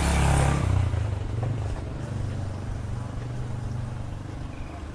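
A motor vehicle engine passing close by, loudest in the first second, then running on more quietly.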